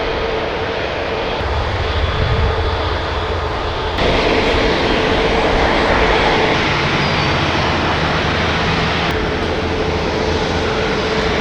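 Airbus A350's Rolls-Royce Trent XWB jet engines running: a steady rushing noise with a held tone under it. The sound steps up abruptly about four seconds in and changes again near nine seconds.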